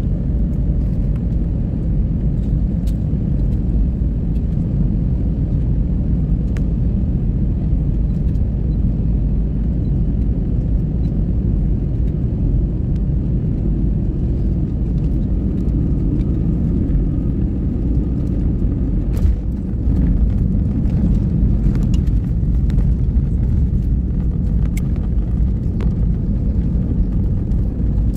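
Cabin noise inside an Airbus A320-family airliner on final approach: a steady, loud rumble. About two-thirds of the way through it touches down, and the noise steps up with scattered rattles and knocks as it rolls along the runway with the spoilers raised.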